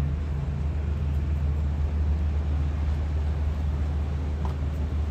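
Steady low engine drone, with a fainter higher hum that fades about half a second in.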